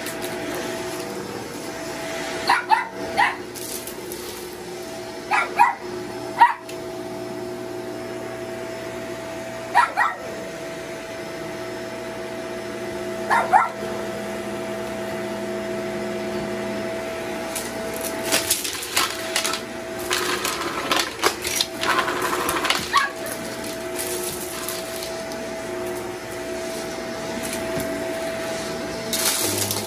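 Upright vacuum cleaner running steadily on carpet, its motor holding a constant whine, with crackling and rattling from about two-thirds of the way through as crunchy debris is sucked up. A dog gives several short yelps or barks in the first half.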